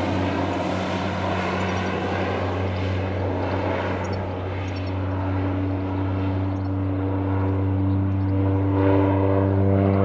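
Air Tractor AT-402B agricultural plane's turboprop engine and propeller running as it flies low overhead: a steady low hum that grows a little louder and clearer-toned in the last few seconds.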